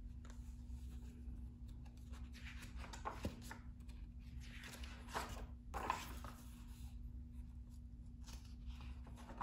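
Pages of a hardcover picture book being opened and turned, several soft paper rustles and swishes, over a faint steady hum.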